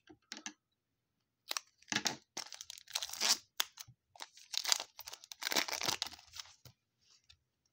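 Foil wrapper of a 2020 Prestige football card pack crinkling and crackling as it is pulled open and the cards are slid out, in several bursts.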